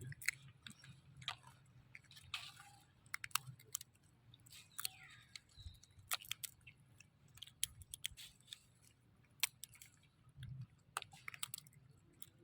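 Baby monkey chewing food, with irregular wet clicks and smacks of its mouth.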